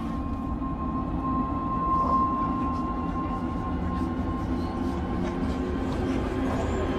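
Film-trailer sound design: a low, steady rumble with a thin high tone held over it.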